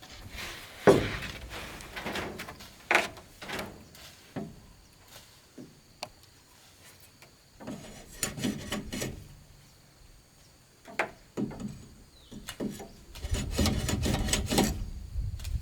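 Irregular knocks and short scrapes of wood or bamboo being handled and rubbed together. Near the end they become louder and denser, with a low rumbling noise underneath.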